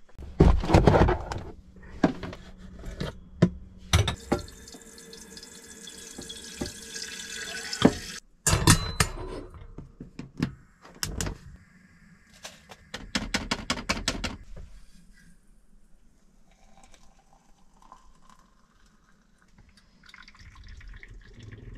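Water running from a small tap into a stainless steel kettle for about four seconds, with a few knocks of handling before it. Then several runs of sharp clicks, a quick string of them near the middle, as the gas hob is lit under the kettle, followed by a quieter faint stretch.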